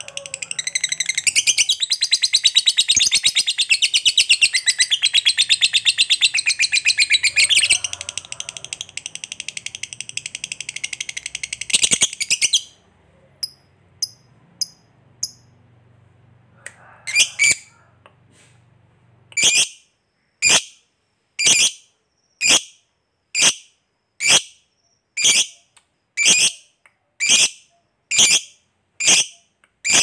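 Lovebird giving a long, fast chattering trill, the 'ngekek panjang' prized by lovebird keepers, for about twelve seconds. After a short pause with a few faint chirps, it makes a run of sharp single calls about once a second.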